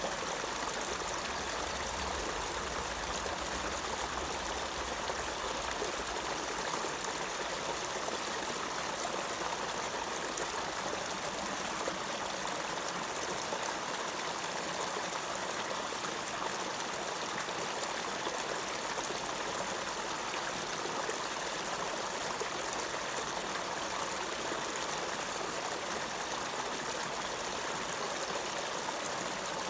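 Running water flowing steadily, a constant even rush like a stream. A faint low rumble underneath stops about seven seconds in.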